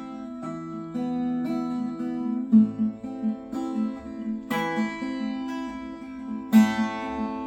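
Instrumental song intro on a plucked string instrument, likely guitar: sustained chords with new notes struck about every half second to second, and two harder strummed strokes in the second half.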